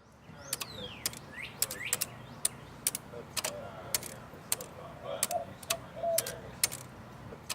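A run of sharp clicks or taps, about two a second and not quite even, over a low steady hum. A few short falling chirps come in the first two seconds.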